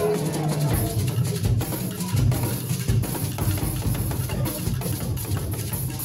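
Church praise music: drums and percussion playing a steady dance beat over a bass line, with a singing voice trailing off in the first second.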